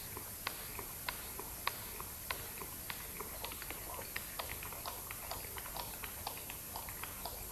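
Fishing reel ticking in a steady string of sharp clicks while a fish is played on a bent feeder rod. The clicks come about every half-second at first, then quicken to several a second from about three seconds in.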